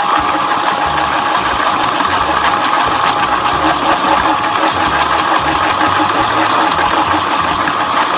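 Electric mixer running steadily at one speed, whisking wet muffin batter, with scattered light clicks over the motor.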